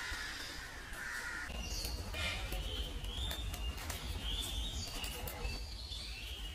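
Birds calling in a quick run of short, repeated calls, starting about a second and a half in, over a steady low rumble.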